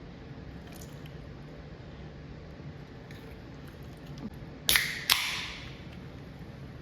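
A carbonated seltzer water container being opened: two sharp pops close together, each followed by a short fizzing hiss of escaping gas that fades away.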